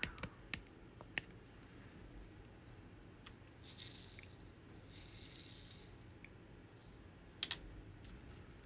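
Diamond-painting work: light clicks and taps as round resin drills are set onto the sticky canvas with a drill pen, a louder click near the end, and two brief rustles in the middle.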